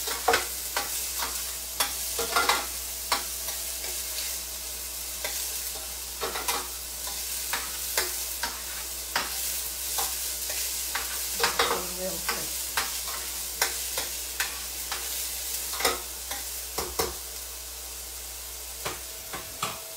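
Chopped onions sizzling in avocado oil in a stainless steel pan, being sautéed until translucent, while a spoon stirs them with frequent scrapes and taps against the pan.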